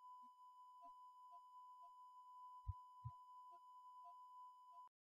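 Near silence with a faint, steady high electronic whine from the digital night-vision scope's recording electronics, which cuts off suddenly near the end. Two faint clicks come a little past the middle.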